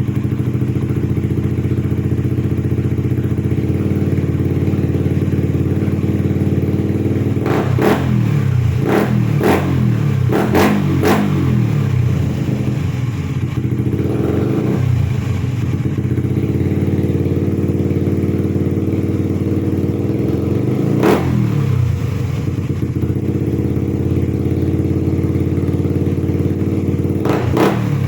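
Motorcycle idling through a gutted aftermarket Apido exhaust pipe. The throttle is blipped in a quick cluster about a third of the way in, once more past the middle and again near the end, each rev with a little popping from the pipe.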